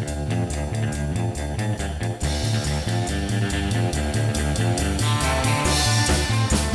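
Background music: rock with guitars and a pulsing bass line over a steady beat.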